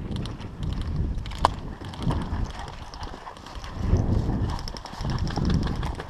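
Footsteps crunching on gravel as the wearer moves, with the light rattle of carried gear and low gusts of wind on the microphone. A single sharp click stands out about a second and a half in.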